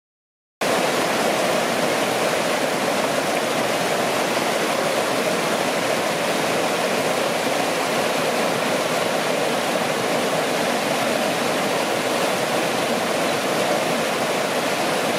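A rocky creek rushing and splashing over boulders in small cascades: a steady, loud rush of water that cuts in abruptly after about half a second of silence.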